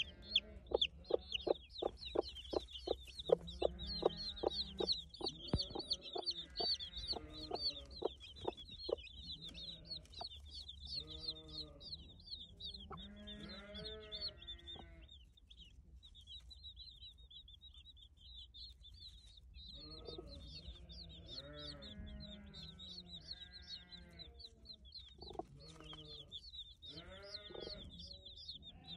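Newly hatched chicks peeping nonstop in rapid high cheeps while the mother hen murmurs and clucks low to them in repeated short bouts. In the first several seconds she also gives a quick run of short, sharp clucks, about two or three a second.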